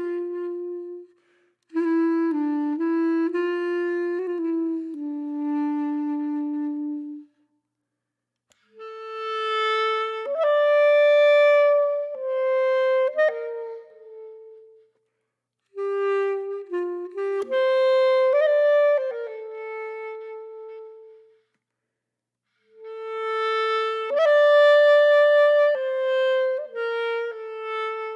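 Solo woodwind instrument playing an unaccompanied melody, one note at a time, in phrases of several seconds separated by short pauses.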